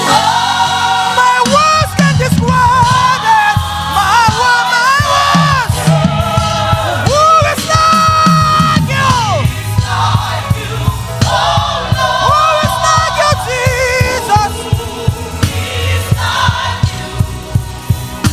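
Gospel choir singing with a live band: a prominent voice bends and slides through the melody over the choir, with bass and a steady drum beat underneath that comes through more clearly in the second half.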